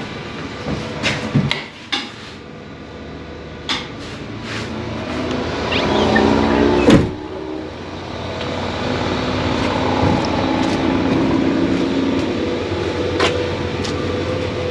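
Handling knocks and footsteps as someone walks out of a wooden shed onto concrete, with a sharp bump about seven seconds in. From about eight seconds a steady low hum runs underneath.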